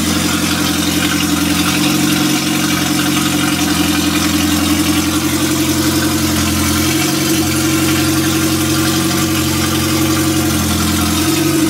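Freshly rebuilt Mazda FE 2-litre four-cylinder engine idling steadily at about 1200 rpm on its first run after the rebuild.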